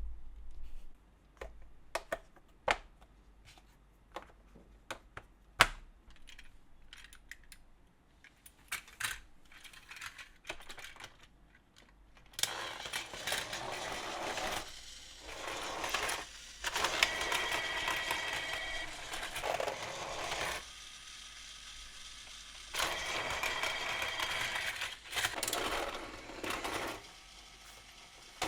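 Scattered clicks of plastic toy-track pieces being handled, then a battery-powered Takara Tomy Plarail/Tomica toy set running on its plastic track with a steady rattling whir. The whir stops and restarts a few times, and a brief high tone sounds twice.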